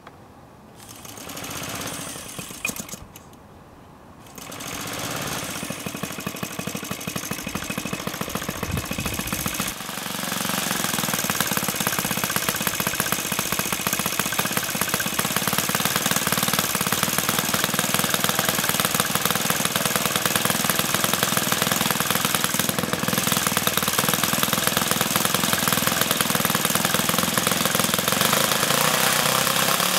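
Electric starter cranking the O.S. 120 four-stroke glow engine of a radio-control model plane; the engine catches and runs, steps up louder about ten seconds in, then runs steadily.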